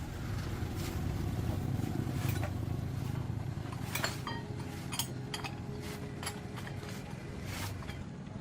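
A steady low hum with scattered light metallic clinks and taps, the sharpest about four and five seconds in.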